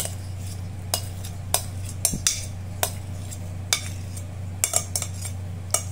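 A spoon clinking and scraping against a bowl as a thick dressing is scooped out, in about a dozen short, irregular taps, over a steady low hum.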